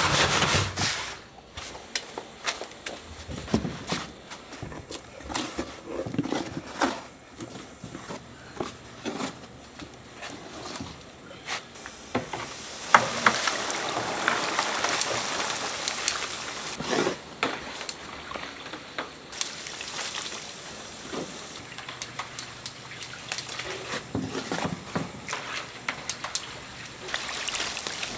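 Dough balls for street donuts being deep-fried in a pot of hot oil. After some scattered light knocks, the oil breaks into a dense sizzle about twelve seconds in as the batch goes in. The sizzle is strongest for a few seconds, then settles to a steadier hiss with taps from a wire mesh strainer stirring the oil.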